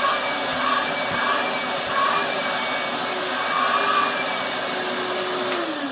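Shop vacuum running with a steady whine, its nozzle sucking dust and old residue off an 80-grit sanding disc. Near the end it is switched off and the motor's pitch falls as it spins down.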